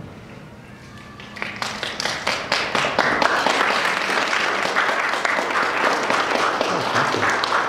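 Audience applauding in a hall, starting about a second and a half in and quickly building to a steady mass of clapping.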